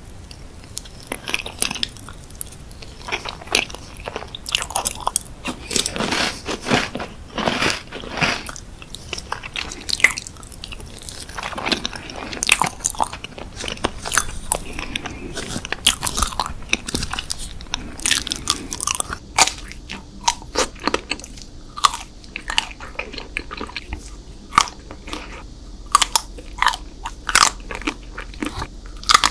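Close-miked mukbang eating: crunchy bites and chewing, a dense run of crisp crackles and smacks. About two-thirds of the way through, the clicks become sparser and sharper over a quieter background.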